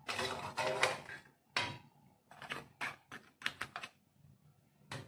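A ladle scraping and knocking against a ceramic dish and crab shells as crab curry is spooned in: a run of short clattering scrapes and knocks, in bunches about a second apart.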